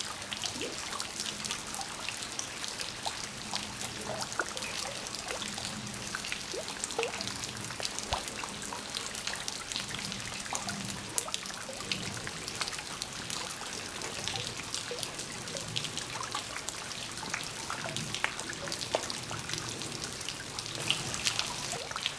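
Light rain falling onto creek water: a steady patter of many small scattered drops.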